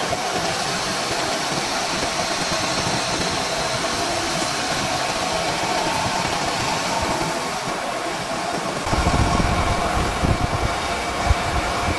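CNC lathe diamond-cutting an alloy wheel: a steady, even machine hiss with a faint constant mid-pitched tone. A deeper rumble joins about nine seconds in.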